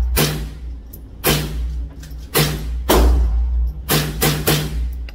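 Rapid semi-automatic fire from an HK .22 LR rifle, about seven shots at uneven spacing, each a sharp crack that rings briefly off the concrete walls of an indoor range.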